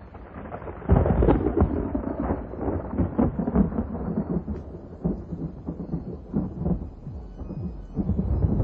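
A rumble of thunder with a crackling, rain-like hiss. It breaks in suddenly about a second in and rolls on unevenly.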